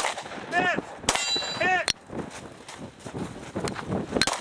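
Compensated Glock 23C .40 S&W pistol firing at steel targets, about five sharp shots spaced irregularly, two close together near the end. The shot about a second in is followed by the steel plate ringing, a hit. Short shouted calls come between the shots.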